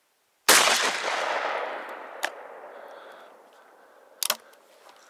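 A single shot from an IZh-43 side-by-side double-barrelled shotgun, loud and sudden, its report rolling away over the next couple of seconds. Two fainter sharp clicks follow, the second of them doubled.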